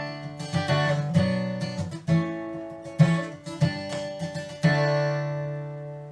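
Acoustic guitar strummed, a slow chord pattern with each chord ringing and fading before the next: the song's instrumental intro.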